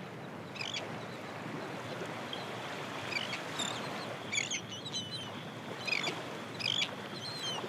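Seaside ambience: a steady wash of waves with short, chirping bird calls roughly every second.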